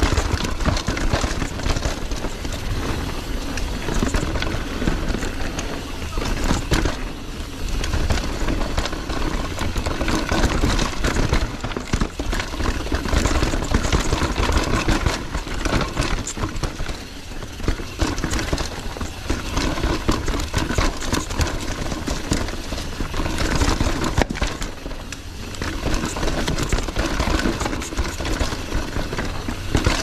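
Downhill mountain bike ridden fast down a rough bike-park trail, heard from the rider's action camera: steady wind rush and tyre roar on dirt, with constant rattling and knocking from the bike over bumps and rocks.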